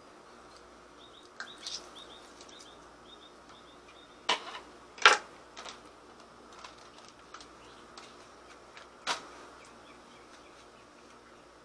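A plastic bag and a plastic bowl being handled: light rustling and scattered clicks, with sharp clacks about four and five seconds in and once more about nine seconds in.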